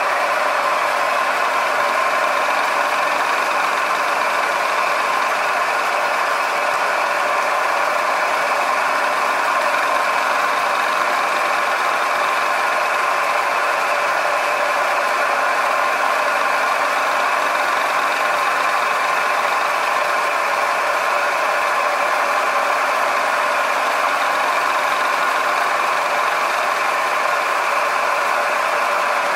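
Milling machine running, its 1/8-inch four-flute end mill cutting a straight slot through a metal plate: a steady machining drone with strong hum-like tones and no change in level.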